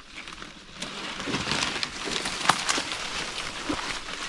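Rustling and crackling of dense palmetto scrub and brush as a person pushes through it on foot, with a few sharp snaps of twigs or fronds. It gets louder about a second in.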